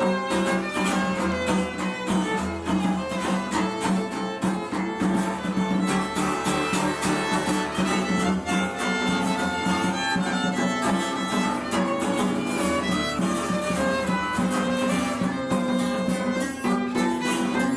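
Instrumental music led by a violin carrying the melody over a steady rhythmic accompaniment.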